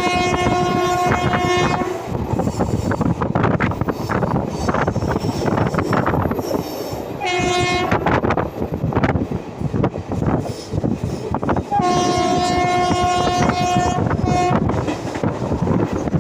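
Train running with steady wheel clatter while its locomotive horn sounds: a long blast at the start, a short one about seven seconds in, a long one about twelve seconds in, and a brief toot just after it.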